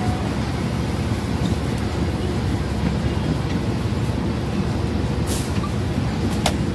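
Steady low rumble of a city transit bus in motion, heard from inside the cabin near the rear door. A brief hiss comes about five seconds in, and a sharp click just before the end.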